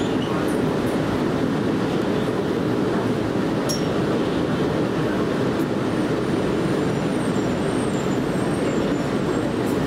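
Steady interior rush and hum of an R179 subway car standing in a station, even and unchanging, with a few faint ticks.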